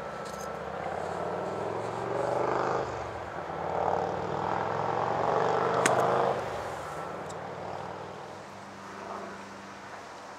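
A golf club strikes sharply through bunker sand in a splash shot about six seconds in, over a motor vehicle's engine that swells and then fades.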